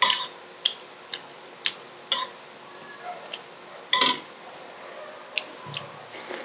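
Eating sounds while a balut is being eaten: a series of irregular sharp clicks and taps, about nine in all, the loudest right at the start and about four seconds in.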